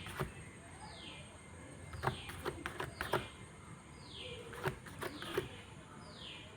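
A car's rear wheel spinning freely on a newly replaced wheel bearing, running quietly with no hum. A faint short falling squeak repeats about once a second, with a few light clicks.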